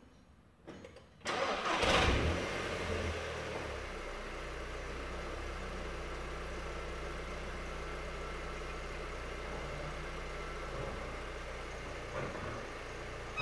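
Audi TT's turbocharged engine cranking and catching about a second in, flaring up briefly, then settling into a steady idle.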